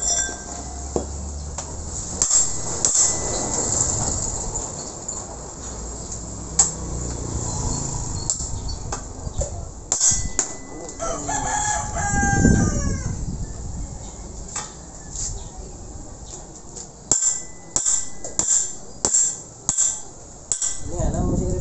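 A rooster crows once, about halfway through. Around it are sharp metal knocks and clinks from work on a truck axle's steering knuckle and kingpin, coming as a quick run of taps near the end.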